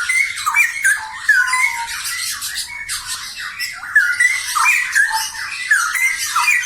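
A pair of straw-headed bulbuls (cucak rowo) in full song: a loud, unbroken stream of quick warbled notes that slide up and down.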